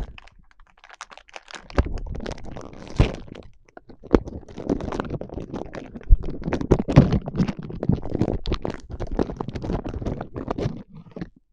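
A packet of Papadopoulou Gemista biscuits being opened by hand: the wrapper crackles and rustles in a dense run of small clicks and crinkles, starting about two seconds in, with a few knocks among them.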